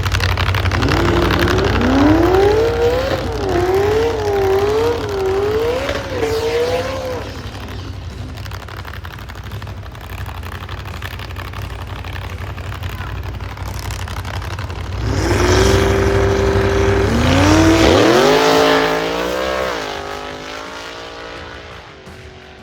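Drag racing cars at full throttle: one accelerates about a second in, its engine note climbing and dropping back at each gear change. Later another engine is held at steady revs, then launches and climbs through its gears before fading away. A low engine rumble runs under both and stops about eighteen seconds in.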